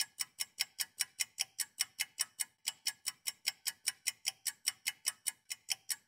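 Clock-ticking sound effect: fast, even, sharp ticks at about six a second, standing for time passing.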